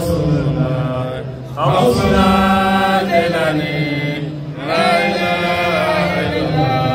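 A man's voice chanting an Islamic devotional chant in long, drawn-out phrases, each held for about three seconds, with a new phrase starting about one and a half seconds in and again near five seconds.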